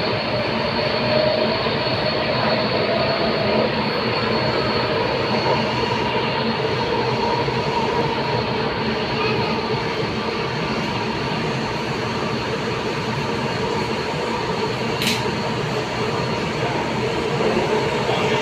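Interior running noise of a C951 Downtown Line metro train between stations: a steady rumble with a few held whining tones. A single short click comes about fifteen seconds in.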